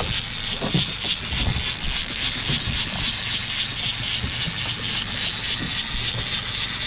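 Boat's engine running steadily under a loud, even hiss.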